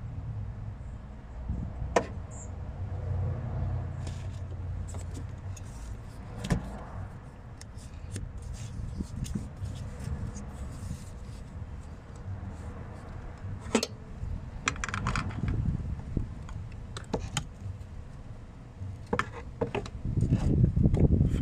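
Hands working rubber vacuum hoses and a spring hose clamp onto a new EVAP purge valve in an engine bay: scattered clicks, light rattles and scrapes of plastic, rubber and metal, getting louder near the end.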